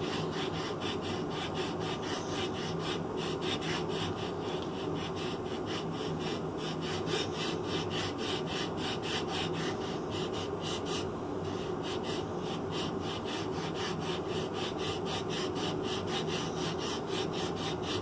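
Hand rasp filing a pine wood block in quick, even back-and-forth strokes, about three or four a second, with a brief pause about eleven seconds in.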